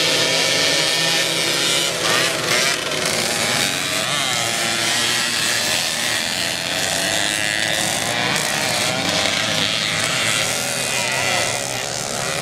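A pack of small moped engines racing together on a dirt track. Their several pitches rise and fall as the riders rev up and back off.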